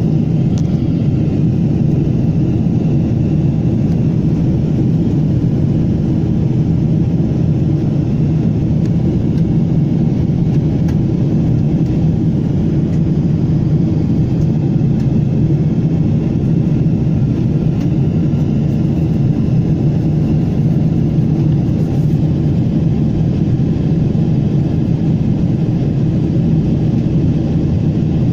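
Jet airliner cabin noise in flight, heard inside the cabin: a loud, steady low rumble of the underwing turbofan engines and airflow that holds even throughout.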